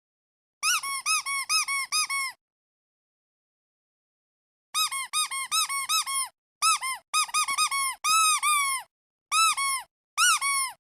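Squeaky rubber duck toy squeezed again and again, each squeak a short rise and fall in pitch. About seven come in a quick run, then after a pause of about two seconds more follow in uneven clusters, a few of them drawn out longer.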